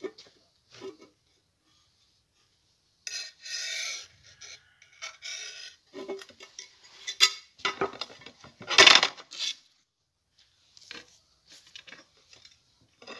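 Steel chainsaw guide bar scraping and clinking against a board in a run of short, irregular strokes. The strokes start a few seconds in and are loudest about two-thirds of the way through, with a few softer ones near the end.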